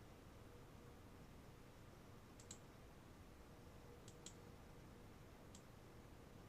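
Faint computer mouse clicks over quiet room tone: a quick pair about two and a half seconds in, another pair about four seconds in, and a single click a little later.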